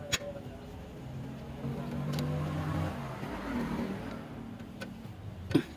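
A motor vehicle engine running, swelling for a few seconds and then easing off. A sharp metallic knock comes near the end.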